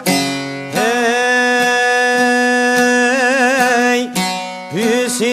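Introduction of an Albanian folk song: plucked-string accompaniment with a long held, sliding melodic line. The line glides up into its note about a second in, wavers with vibrato past the middle, and breaks into short sliding phrases near the end.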